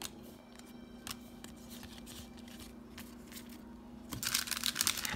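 A foil booster-pack wrapper being torn open near the end: a dense crinkling rip lasting about a second, after a few faint ticks of cards being handled. A low steady hum runs underneath.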